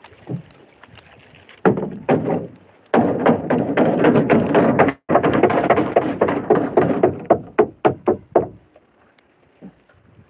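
Rapid, dense knocking and thudding on the wooden hull of an outrigger fishing boat. It starts about two seconds in, runs for about six seconds with a brief break midway, and trails off into a few single knocks. The hull is banged to scare fish into the gill net.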